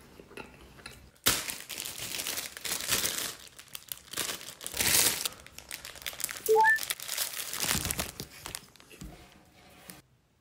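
Clear plastic food wrapping crinkling and rustling in irregular bursts as the wrapped pastry is handled and bitten. About two-thirds of the way through, a short rising three-note chime sound effect plays, louder than the rustling.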